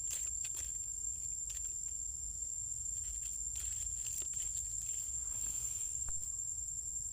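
Forest ambience: a steady high-pitched insect drone over a low rumble, with a few faint clicks and soft rustles.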